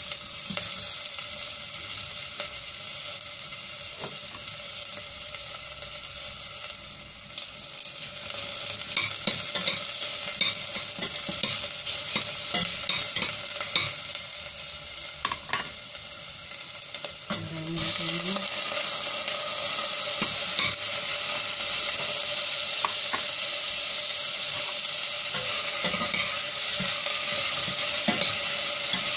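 Sliced onion frying and sizzling in a stainless steel saucepan, with small clicks and scrapes as it is moved about. The sizzle gets louder about eight seconds in and again just past halfway.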